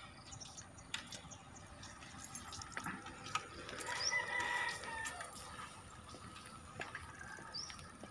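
A rooster crows once, about four seconds in, for about a second. Behind it is a faint outdoor background with a few short bird chirps.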